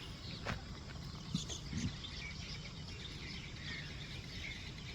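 Outdoor ambience: a low steady background rumble with faint, scattered bird chirps.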